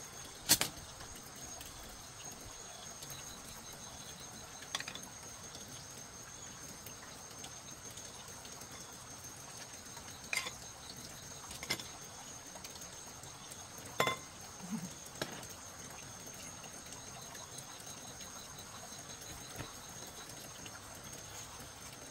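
Scattered sharp clicks and light knocks of eating utensils against bowls during a meal, six or so spread over the first fifteen seconds, over a faint steady background with a thin high whine.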